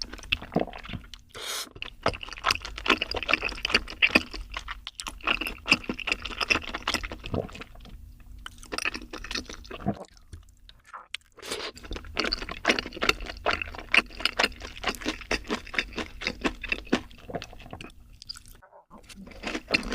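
Close-up chewing of crunchy food: dense runs of crisp crackles and crunches, broken by short pauses, about halfway through and near the end.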